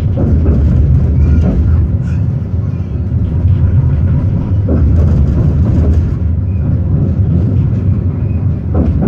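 Tram running along its rails, heard from inside the car: a steady low rumble of wheels and motors.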